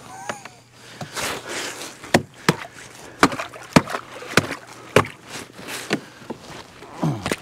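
Thin shore ice being chopped open with a hand tool around a sprung beaver trap: a run of sharp knocks and cracks, about two a second, starting about two seconds in, with the crunch and slosh of broken ice and water.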